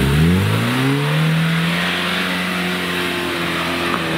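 Lada Niva's engine revving up sharply in the first second, then held at high revs under load as its mud tyres spin and churn through the mud.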